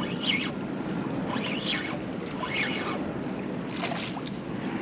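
Wind rushing over the microphone beside moving water, with a hooked jack crevalle splashing at the surface in short, sharp strokes about four seconds in.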